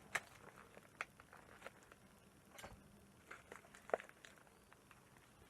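Faint scattered clicks and light crackling of a blade slicing through a parcel's packaging, with a sharper snick about a second in and another near four seconds.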